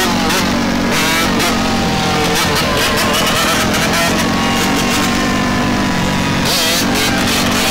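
Several dirt bikes running in a group, over the steady drone of a nearby engine, with engines revving up and down as riders hold wheelies.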